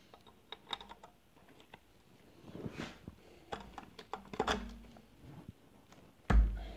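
Light metallic clicks and taps of connecting-rod caps and nuts being handled and fitted on a bare engine block, with a few dull thumps, the loudest near the end.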